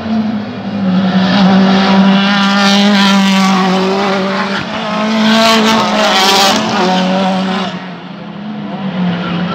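Race car engines accelerating hard past at full throttle, pitch climbing, dropping at a gear change about four seconds in, then climbing again before fading away.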